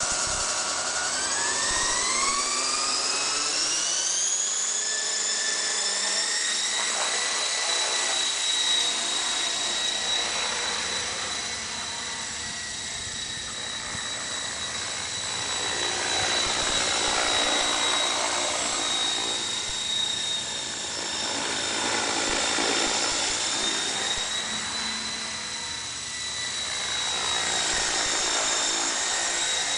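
Falcon 3D RC helicopter's electric motor and rotor spooling up, the whine rising in pitch over the first few seconds. It then holds a steady high whine with a rotor whoosh that swells and fades as the helicopter hovers and moves about.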